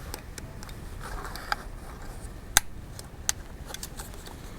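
Small sharp clicks of work on an iPhone 5's insides, the loudest a little past halfway: the new battery's press-fit connector snapping onto its socket on the logic board, a very satisfying click that shows it is seated.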